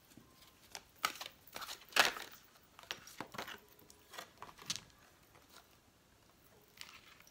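A deck of oracle cards being shuffled by hand: a quick series of short papery rustles and slaps, loudest about two seconds in. The handling grows quieter as the cards are laid down and picked up.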